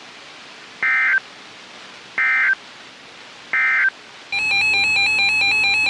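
Three short bursts of weather-radio SAME digital data tones, a warbling two-tone screech about a second and a half apart, which mark the end of a NOAA Weather Radio warning message. About four seconds in, a loud steady electronic alert tone with a pulsing edge starts up from the radio.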